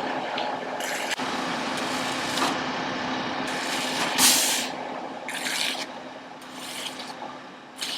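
Ready-mix concrete truck running while it pours concrete, a steady engine hum under a noisy haze. Several short hisses come in the second half.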